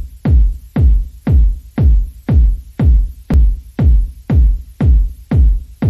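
Electronic dance music with a heavy kick drum beating steadily about twice a second.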